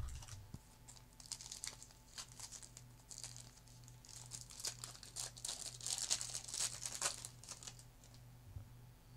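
A trading-card pack wrapper being torn open and crinkled, in a run of faint crinkly rustles, with a low steady hum underneath.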